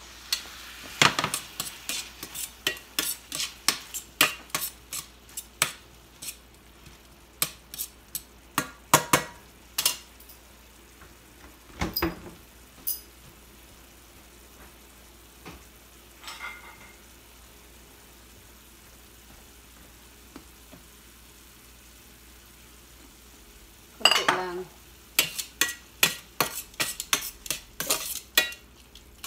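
A utensil clinking and scraping against a stainless steel frying pan as sauce is stirred. The sharp clicks come in quick runs through the first ten seconds and again near the end, with a louder knock about twelve seconds in and a quiet stretch between.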